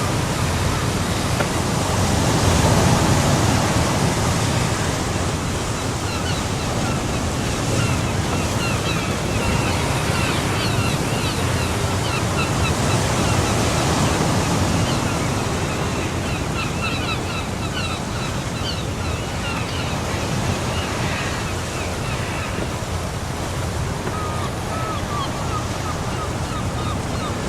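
Steady rushing noise of wind buffeting the microphone beside a pond, swelling a few seconds in and again near the middle. Faint, short high chirps repeat in the background throughout.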